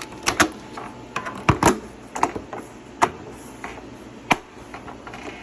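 A scattered series of sharp clicks and knocks, about six in all, from the plastic parts of a microwave oven door and its latch being handled and fitted back together.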